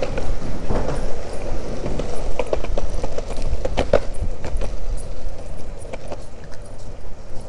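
Longboard wheels rolling over concrete pavement with a steady rumble, and sharp clacks at irregular moments as the wheels cross joints and cracks in the path.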